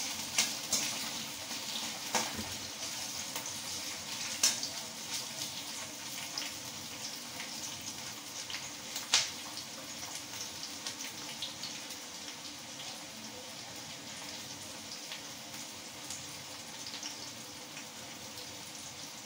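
Sliced onions frying in hot oil in a kadhai: a steady sizzle with scattered crackles, a few sharper pops in the first ten seconds, easing slightly toward the end.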